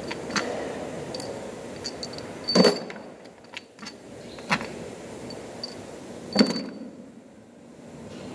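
Metal clinks and knocks of hand tools and bolts against the cast metal selector housing of an I-Shift gearbox. Three sharp, ringing clinks stand out, about two and a half, four and a half and six and a half seconds in, between lighter ticks.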